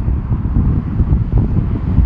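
Strong, gusty wind buffeting the microphone: a loud, low, uneven rumble with no steady tone.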